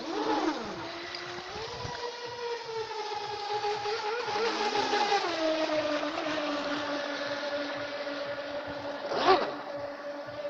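Feilun FT011 brushless RC speedboat's motor whining as the boat runs, one steady high whine that steps up in pitch about two seconds in, drops about five and a half seconds in, then holds steady. A brief louder rushing burst comes about nine seconds in.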